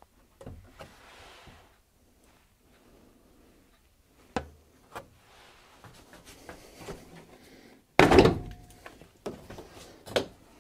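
Knocks, thuds and rustling from someone working around the front of a kei truck and handling its plastic front bumper. The loudest is a single thunk about eight seconds in, which rings briefly.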